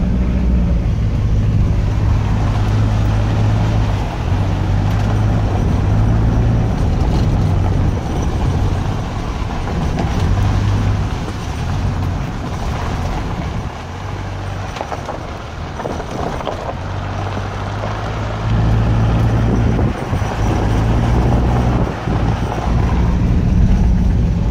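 Vehicle driving on a gravel road, heard from inside the cab: a steady engine drone with the rough rumble of tyres on gravel, easing off somewhat partway through before building up again.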